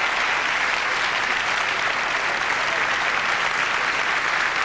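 Large auditorium audience applauding steadily: a dense, even clapping that holds without a break.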